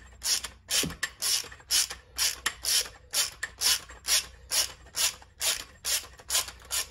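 Hand ratchet worked back and forth, a short run of pawl clicks on each return swing, a little over two a second, as it unscrews the now-loosened retaining bolt from the inner tube of a Yamaha XT500 fork leg.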